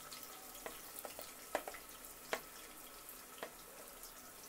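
Sliced onions sizzling faintly in hot oil in a pressure cooker, with a few sharp crackles and pops scattered through.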